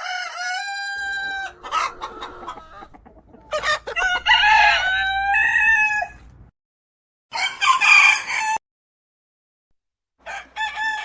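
Rooster crowing several times, each crow a pitched cock-a-doodle-doo ending in a long held note, with shorter calls in between and abrupt gaps of silence between the crows.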